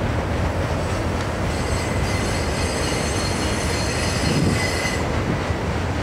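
Freight train cars rolling past with a steady low rumble of wheels on rail. A high-pitched metallic wheel squeal starts about a second and a half in and cuts off about five seconds in.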